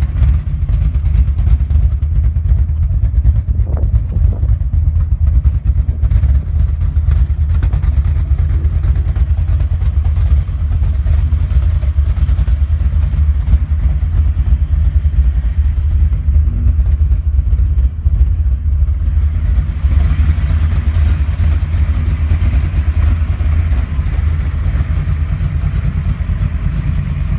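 Square-body Chevrolet pickup's cammed engine idling with a loping idle from an aggressive camshaft, a steady deep exhaust pulse throughout.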